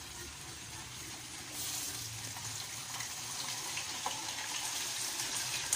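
Raw chicken pieces sizzling as they are laid into hot oil in a frying pan, a steady hiss that gets louder about a second and a half in.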